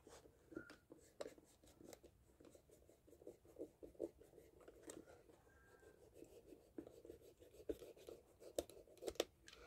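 Knife blade slicing along the edge of a rubber shoe sole, trimming off the protruding rim: faint, irregular scraping with small clicks as the cut is worked along.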